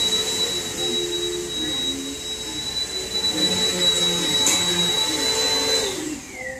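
An electric appliance motor running with a steady high whine over a rush of air, then switched off about six seconds in, its pitch sliding down as it spins to a stop.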